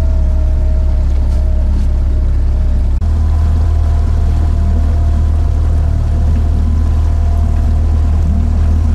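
Outboard motor driving a small aluminium jon boat at speed: a loud, steady drone with water rushing along the hull. About three seconds in there is a brief dip and a slight change in tone.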